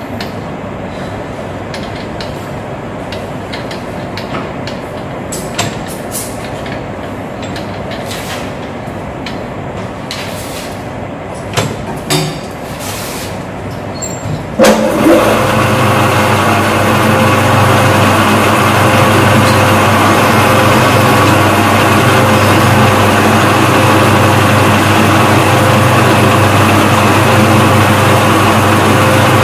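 Scattered metallic clicks and knocks from handling work at a metal lathe, then about halfway in the lathe is switched on and its spindle runs at a steady, loud geared hum with several even tones.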